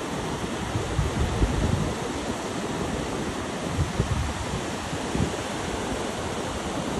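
Ocean surf breaking and washing up a sandy beach, a steady rushing hiss, with wind buffeting the microphone in low rumbling gusts.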